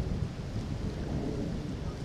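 Wind buffeting the microphone: a steady, low, fluctuating rumble.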